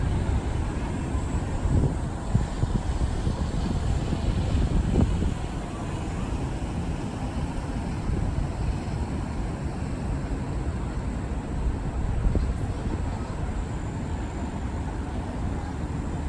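Steady low outdoor rumble of city background noise, with a few brief louder bumps.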